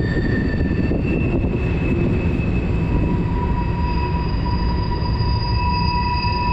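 Fast, high snowmelt river rushing steadily, with several thin, high, steady squealing tones over it that come and go and change pitch, a higher one giving way to lower ones about a second in and a new low one joining about three seconds in.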